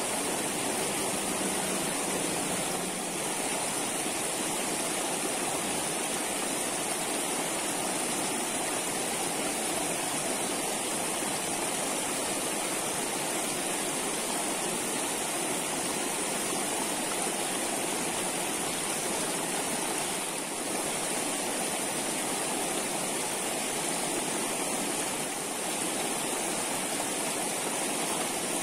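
Steady rushing of flowing stream water, an even hiss that does not change.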